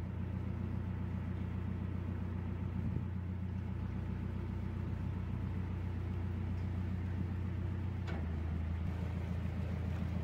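A narrowboat's diesel engine running steadily at slow speed: a deep, even hum.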